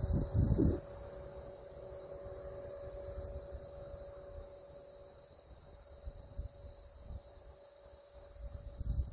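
Insects chirring steadily in the grass, with a low rumble in the first second that dies away.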